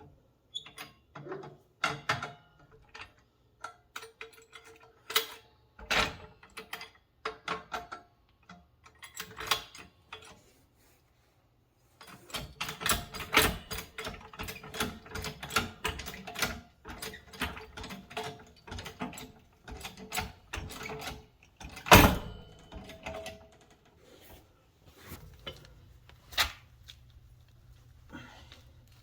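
Irregular clicks, clinks and knocks of hand-tool work, sparse at first and busier from about twelve seconds in, with one loud knock about twenty-two seconds in.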